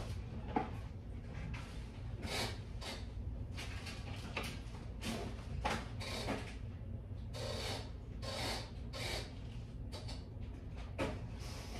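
Irregular rubbing, scraping and knocking of household things being handled and moved about, like drawers or cupboards being opened and shut, over a steady low hum.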